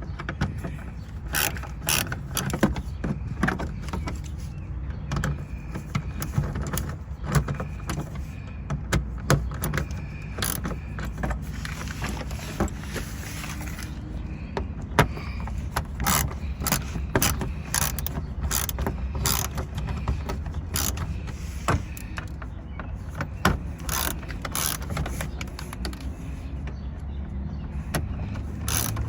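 Tools and fasteners clicking and knocking irregularly as the screws and clips of a car's under-engine cover are taken out, over a steady low hum.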